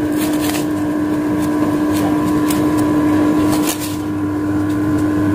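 LG split air conditioner's outdoor unit running, its compressor and fan giving a steady hum with a strong low drone, while being pumped down with the liquid-line valve closed. A few light clicks come over it.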